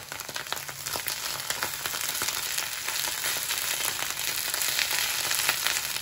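Minced mushrooms and onion sizzling as they fry in vegetable oil in a pan over medium heat: a steady hiss full of fine crackles, growing slightly louder.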